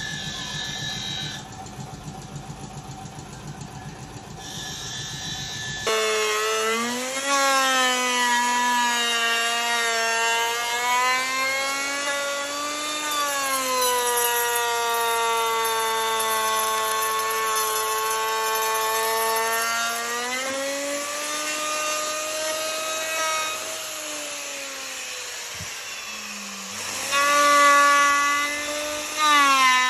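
Electric plunge router running and cutting a profile into a hardwood frame, its motor whine sagging and rising as the bit takes and sheds load. It cuts out near the end and starts up again. A rougher, noisier power-tool sound fills the first few seconds.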